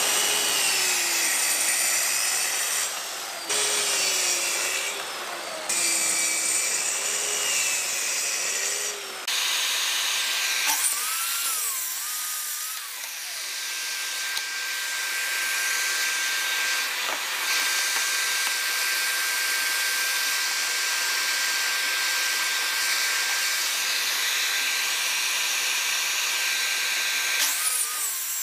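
Plunge-cut track saw cutting thin birch plywood along a guide rail, the blade's pitch wavering as it feeds through the cut, in short stretches broken by sudden cuts. After that a long steady run of machine noise with a constant high whine from the saw and its attached dust extractor, with the motor winding up about a third of the way in and again near the end.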